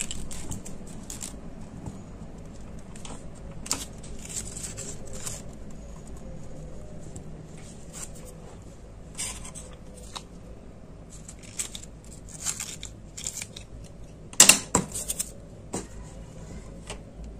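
Green tape being wrapped and stretched around a stem stick: irregular soft crackles and sticky ticks as it pulls off and is pressed down, with a louder burst of crackling about two and a half seconds before the end.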